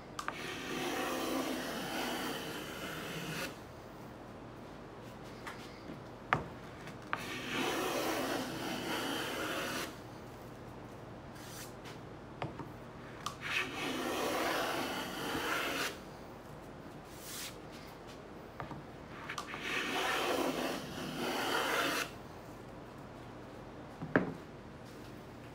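Handmade wooden moving fillister plane cutting a rebate: four passes of about three seconds each, the iron slicing a rasping shaving from the wood. Sharp knocks fall in the pauses between passes.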